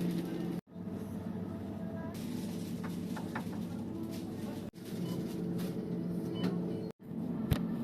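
Ice cream machine running with a steady electric motor hum and a few light clicks, broken by short abrupt dropouts.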